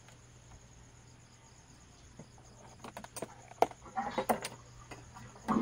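Clicks, knocks and short rustles of handling as the multimeter test leads and the open unit are moved about, starting a little before halfway and loudest near the end. Under them is a faint steady cricket chirring with a low hum.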